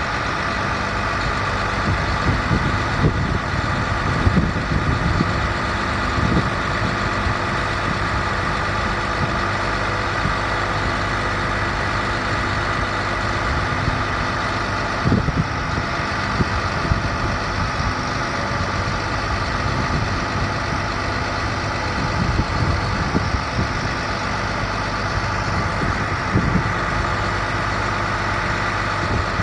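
International 4300 bucket truck's diesel engine idling steadily, with a steady whine above it and occasional brief low bumps.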